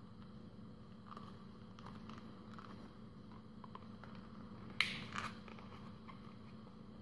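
Folded origami paper rustling and crinkling under the fingers as the paper boat's folds are pulled open, with small scattered crackles and one sharper crackle of the paper about five seconds in.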